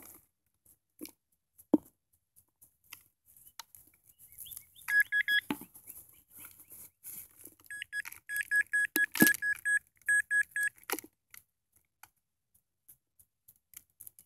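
Nokta pinpointer beeping in rapid short pulses as it is pushed through dug soil, a brief run about five seconds in and a longer run a few seconds later, signalling a metal target in the dirt. Faint scrapes of soil and one sharp knock go with it.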